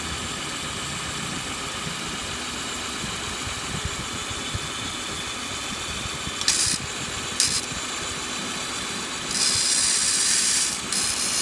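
Kia Sorento engine idling roughly with a misfire on cylinder 1. Two short bursts of hiss come about six and seven seconds in, and a longer, louder hiss near the end.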